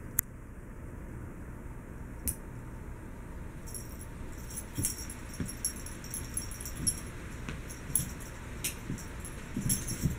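A cat playing with a yarn toy on a rug: scattered soft thumps and light clicks as it pounces and bats, coming more often in the second half.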